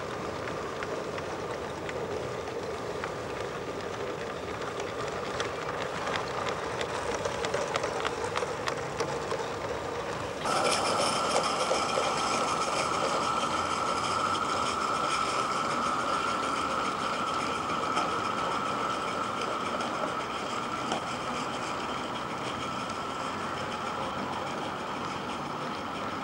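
A small live-steam garden-railway locomotive running with its coaches, wheels clicking over the track. About ten seconds in the sound changes abruptly to a louder, steadier rush with a high steady tone running through it.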